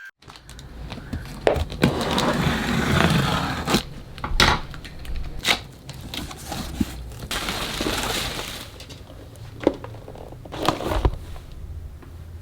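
Toy packaging being handled and opened by hand: plastic and cardboard rustling and crinkling, with several sharp clicks and taps.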